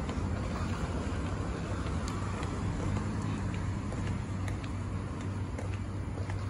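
Steady city road traffic: a constant low hum and rumble of cars, with faint scattered ticks over it.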